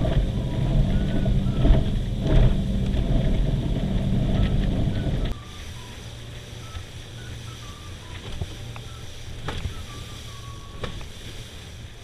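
Small boat's outboard motor running under way, with wind and water noise; loud at first, it drops much quieter and steadier about five seconds in.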